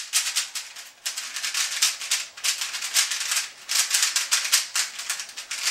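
MoYu AoLong v1 3x3 speedcube being turned rapidly by hand on its first turns out of the box: fast, loud, clanky clacking of its plastic layers, in runs broken by short pauses about one second and two and a half seconds in.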